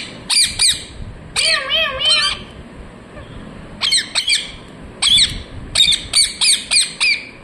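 Pet parrot squawking: short, harsh, high calls in clusters, with a quicker run of about eight calls near the end.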